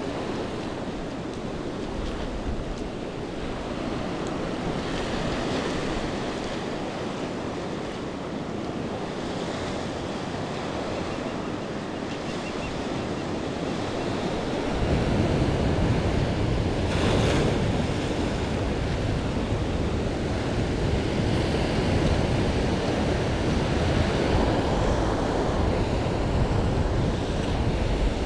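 Small ocean waves washing and foaming up a sandy beach, with wind buffeting the microphone. The rumble gets heavier and louder about halfway through.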